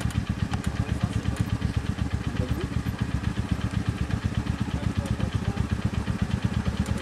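Quad bike (ATV) engine running steadily at low revs, an even, rapid pulse with no revving, as the quad creeps down a steep dirt slope.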